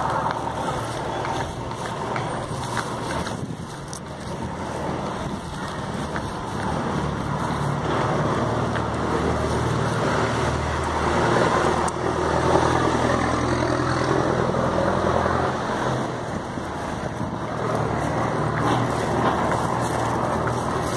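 Street traffic noise with a motor vehicle's engine running close by. Its low hum drops away about three-quarters of the way through.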